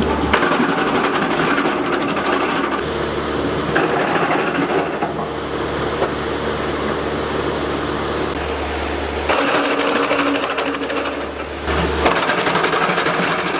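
Gasoline-powered wood chipper running with a fast mechanical clatter. The sound changes abruptly several times as separate clips are cut together.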